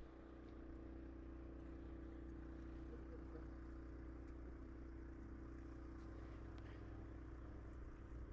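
Faint steady low hum with a light hiss over it.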